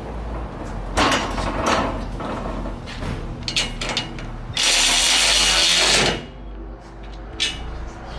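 Power drill driving the mounting bolts on solar panel rails: several short bursts, then one longer run of about a second and a half a little past the middle. A steady low hum underneath.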